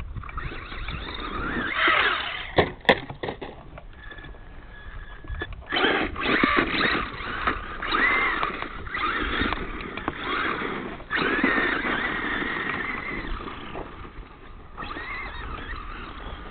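Traxxas Stampede RC monster truck driving on sand, its motor whine rising and falling in pitch with the throttle in repeated bursts, over rough tyre and grit noise. A sharp knock comes about three seconds in.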